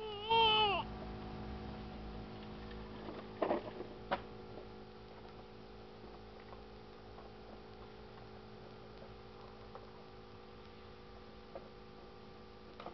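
A young child's short high-pitched squeal that rises and falls, ending within the first second, then two knocks a few seconds in, over a steady low hum.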